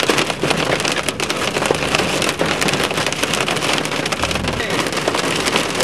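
Heavy rain pelting a moving car's roof and windshield, heard from inside the cabin: a dense, steady clatter of countless drops.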